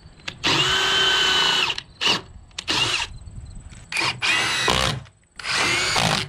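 Cordless drill running in about five separate bursts, the longest about a second and a half, while it works lag screws and countersinks in a wooden timber.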